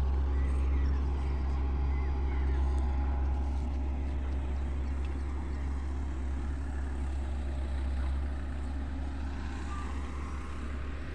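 Diesel engine of an earthmoving machine running steadily: an even, low drone.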